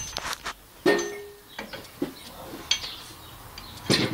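Metal hand tools clinking and knocking against the tractor's metal parts: a handful of sharp clanks, one ringing briefly about a second in, the loudest near the end.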